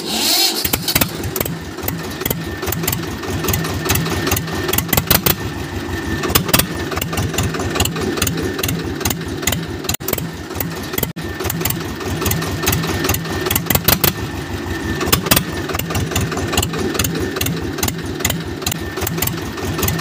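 Engine chugging steadily with a fast, even rattling beat, as of a small tractor running.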